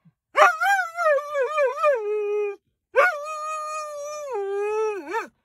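Afghan hound howling: two long, wavering howls with a short break between them, the second ending in a quick dip and rise in pitch.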